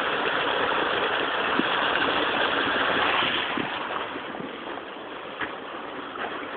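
Steady rushing noise with no pitch to it, easing off after about three and a half seconds, with a few faint knocks.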